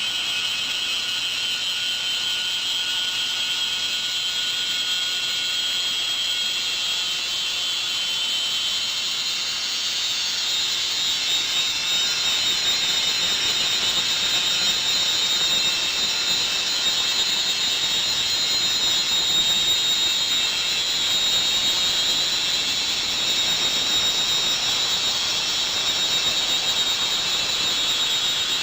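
Band saw running steadily with a high whine while its blade resaws a small piece of wood; the noise grows a little louder from about twelve seconds in.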